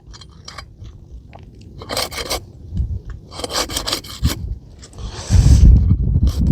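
Asphalt roof shingles being unsealed: short rasping, scraping strokes as a tool is worked under the tabs and breaks the adhesive seal strip. A louder low rumble comes in near the end.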